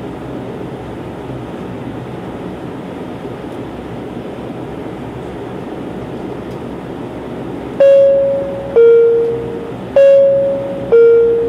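Steady cabin drone of a DHC-8-Q400's PW150A turboprop engines and propellers while the airliner taxis. About eight seconds in, the cabin chime rings twice as a high-low 'ding-dong', the signal ahead of the takeoff announcement.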